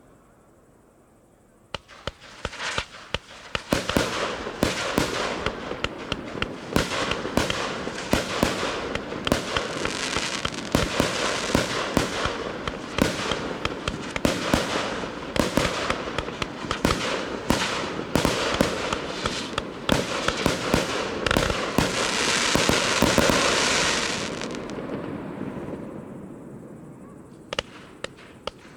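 Fireworks display: after a quiet second or two, a fast, continuous barrage of sharp bangs and crackling. It builds to a dense, loud crackling hiss, then dies down before single bangs start again near the end.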